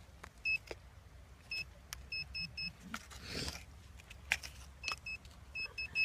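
Metal detector giving short, high-pitched beeps at irregular intervals, several in quick runs of two or three, signalling metal under the coil. It picks up signals all over the spot. There are a few sharp clicks and a brief rustle about three seconds in.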